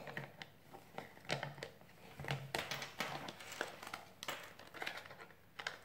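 Small plastic bead-sorting trays being handled and fitted together, with a scattered series of light plastic clicks and taps.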